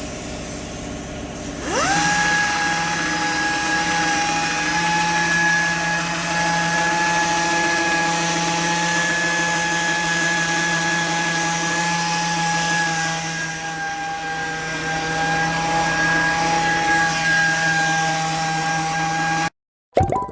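An electric power tool's motor spins up with a quick rising whine about two seconds in, then runs at a steady high whine and cuts off abruptly near the end.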